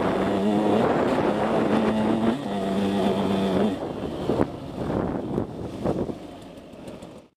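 KTM 150SX two-stroke dirt bike engine running hard at steady high revs, dipping briefly twice. About halfway through it backs off and runs quieter, with a few sharp knocks, before the sound cuts off suddenly near the end.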